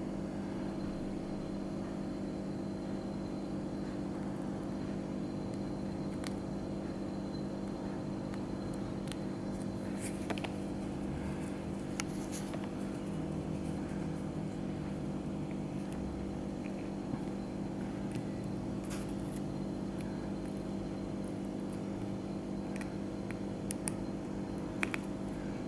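A steady low hum throughout, with a few faint, sharp ticks scattered through it from a fine screwdriver tip on the iPhone 8's tiny bottom pentalobe screw as it is driven in.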